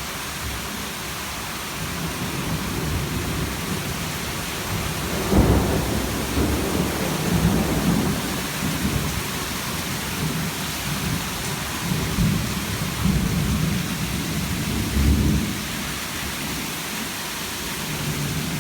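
Heavy rain pouring steadily, with a low rumble that swells about five seconds in and keeps coming and going.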